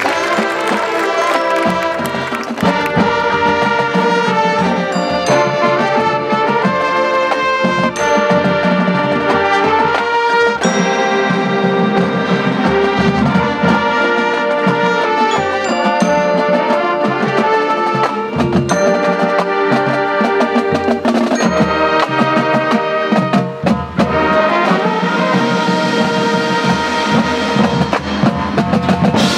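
High school marching band playing its field show: brass sustaining chords and moving lines over percussion, with a brief drop in the music about 24 seconds in.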